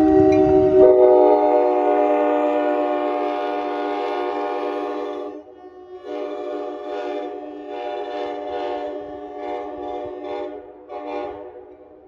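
Commuter train air horn sounding a chord of several tones in a long blast, under the low rumble of the passing cars that stops about a second in. The horn fades as the train draws away, then breaks into a string of short blasts.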